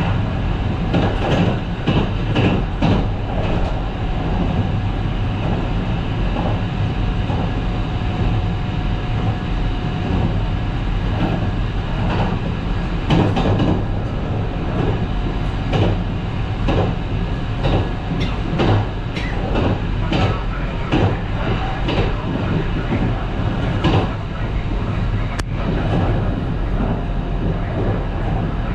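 Kintetsu 22000 series ACE limited express running at speed, heard from inside the car: a steady rumble of the running gear with irregular clicks and knocks of the wheels on the track, and one sharp click near the end.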